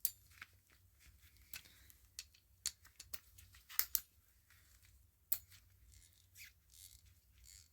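Toolant 90-tooth 3/8-inch flex-head ratchet being worked back and forth, its pawl giving faint, irregular fine clicks. The high tooth count and heavy lubrication keep the ratcheting quiet and smooth.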